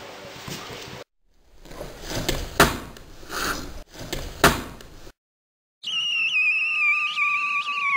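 A football struck by a player's feet on paving: two sharp thumps about two seconds apart. After a short silence, a clear whistling tone begins and slowly falls in pitch.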